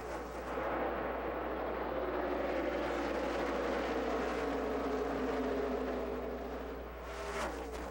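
A pack of NASCAR Cup stock cars' V8 engines at full throttle. The engine note swells and sags in pitch as the field goes by.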